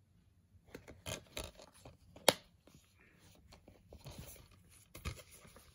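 Plastic Blu-ray case being handled and snapped shut: a few sharp clicks, the loudest a little over two seconds in, with rustling and scraping of plastic between them.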